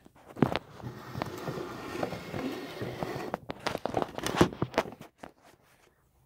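Handling noise from a phone held right against skin and clothing: a few knocks, then about two seconds of steady rubbing, then a quick run of clicks and knocks that stops near the end.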